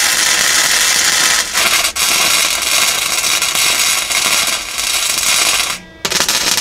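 Flux-core MIG welder arc crackling steadily while tack-welding a thin sheet-metal floor pan patch into the car body. The crackle breaks off briefly about one and a half and two seconds in, stops near the end, and starts again at once.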